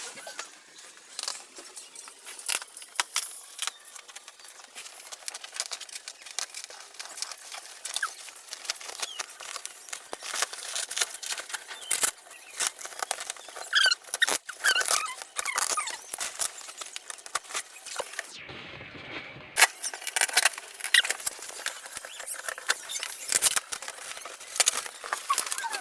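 Bubble wrap and plastic packaging being handled and pulled off an oven, a dense run of crackling and rustling with short squeaks here and there.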